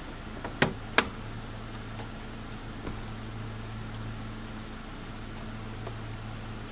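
Two sharp clicks about a third of a second apart, just over half a second in, as parts of a car's air cleaner housing are fitted by hand. A steady low hum runs underneath.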